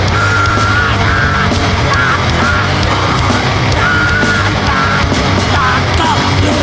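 Loud, heavily distorted grindcore/noise music: a dense, unbroken wall of noise with a heavy low end and short wavering high tones cutting through it.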